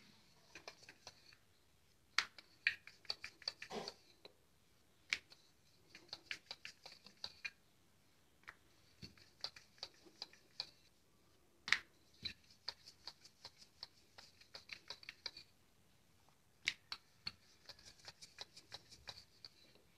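Wooden rolling pin clicking and knocking on a stone kitchen counter as a roti is rolled out: runs of quick light clicks, a second or two at a time, with short pauses between strokes.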